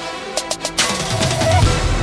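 Music with a beat: a few sharp drum hits, then a heavy bass line comes in about halfway through.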